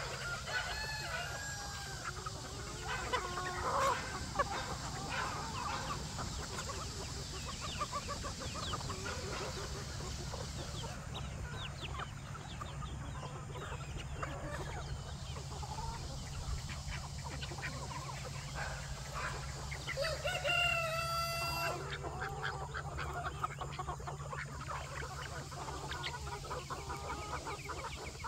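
A flock of chickens clucking and calling, with a rooster crowing once, a long held call about three quarters of the way through.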